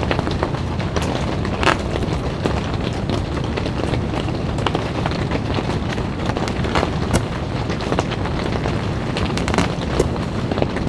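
Steady rain falling on the tent fabric, an even hiss with scattered sharp drop ticks about once a second.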